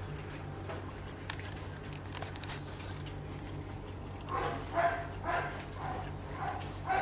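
Six-day-old puppies whimpering and squeaking: a run of short, high cries, about two a second, starting a little past halfway, over a steady low hum.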